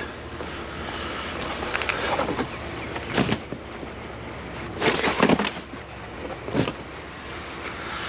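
Discarded curbside scrap being picked up and handled: a few knocks and clatters, the loudest about five seconds in, over a steady rushing background.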